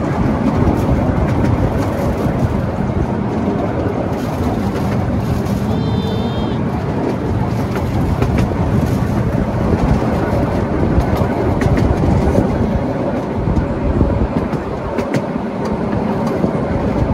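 Miniature railway train running along its 12-inch gauge track, heard from an open passenger carriage: a steady rumble of wheels on rails with a few faint clicks. A brief high wavering sound comes about six seconds in.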